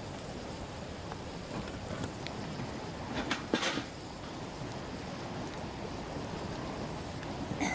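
Open wood fire of dry twigs burning under a cooking pot: a steady rushing hiss with sparse crackles and snaps, and a short cluster of louder cracks about three and a half seconds in.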